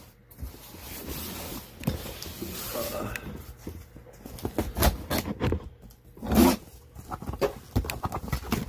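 A large cardboard box being opened and its contents handled: rustling and scraping for the first few seconds, then a run of short knocks and clicks, with one louder, deeper thump a little past the middle.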